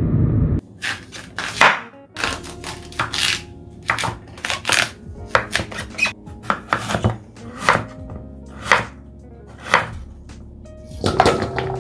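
Kitchen knife chopping on a cutting board: sharp strokes at an uneven pace, about two a second, beginning once a low rumble cuts off in the first second.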